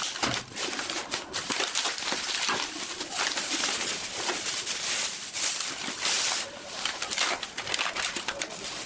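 Thin plastic bags crinkling and rustling steadily while a clear plastic clamshell pack of roll cake is handled and slid out of its bag.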